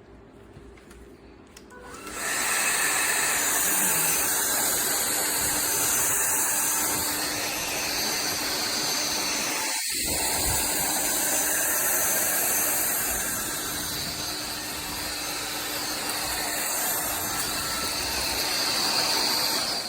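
TVTAU T10 Pro cordless stick vacuum switched on about two seconds in, its motor running steadily with a loud high hiss of suction.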